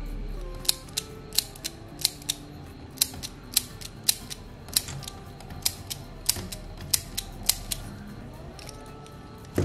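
Plastic parts of an Optimus Prime transforming toy's cannon clicking as they are folded and turned by hand: a string of sharp, irregular clicks, about one or two a second.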